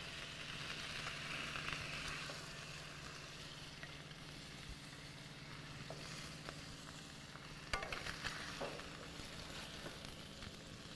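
Salmon fillets sizzling steadily in hot olive oil in a skillet. About eight seconds in come a few scrapes and taps of a wooden spatula against the pan as the fillets are lifted out.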